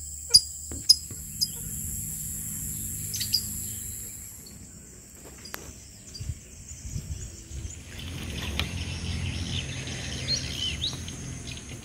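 Outdoor rural ambience: a steady high insect drone with birds chirping, a run of short sharp chirps near the start and more chirping in the last few seconds.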